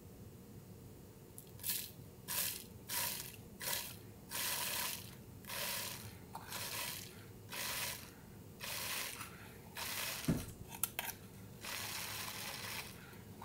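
Ground coffee being shaken out of a small container into a mesh cold brew filter: about a dozen short gritty pours, one after another, with a knock and a couple of clicks around ten seconds in.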